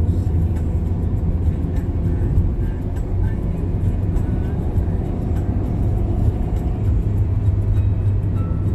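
Steady low rumble of a car's engine and tyres on a paved road, heard from inside the cabin while driving.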